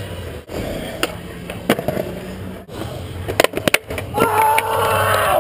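Skateboard on concrete: wheels rolling, with sharp clacks and slaps of the board, a cluster of them about three and a half seconds in. Then a long, loud yell.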